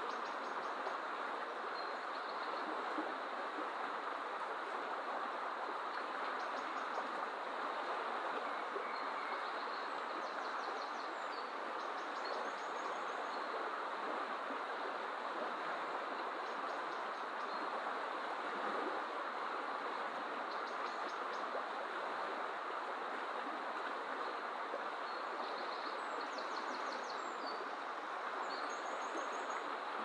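Fast river water rushing steadily over shallow riffles, with faint, short, high bird chirps and trills every few seconds.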